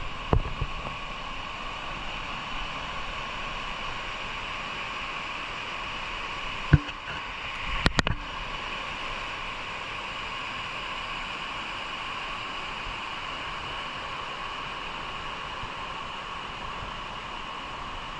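Steady rushing noise of a rainforest waterfall, with a few short knocks near the start and twice about seven to eight seconds in.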